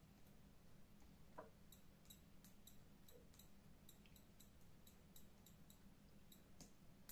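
Near silence: a faint steady hum with faint, irregular high ticks, roughly two to three a second.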